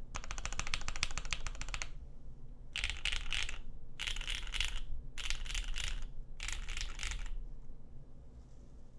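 Custom mechanical keyboard with lubed SP-Star Meteor White linear switches on a polycarbonate plate and GMK keycaps, typed on quickly: a dense run of keystrokes for about two seconds, then four short bursts of rapid keypresses about a second apart. The keystrokes have a creamy clack.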